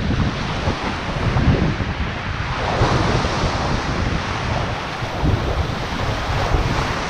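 Sea waves washing and breaking against shoreline rocks, with wind buffeting the microphone as a low rumble. The wash swells louder about two and a half seconds in.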